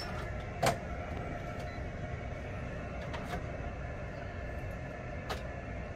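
Steady hum of equipment in a pharmacy work area, with three short light clicks spread through it.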